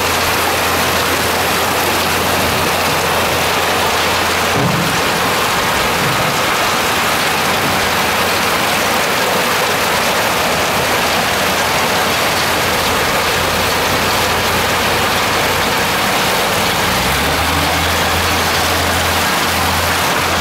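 Muddy water and gravel slurry rushing down a wooden gold-mining sluice, a steady loud hiss. Underneath, a machine engine runs low and steady, rising in pitch near the end.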